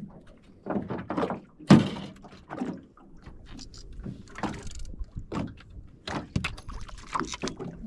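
Irregular knocks and thuds in a small aluminium fishing boat as gear is handled, the loudest a sharp thump a little under two seconds in.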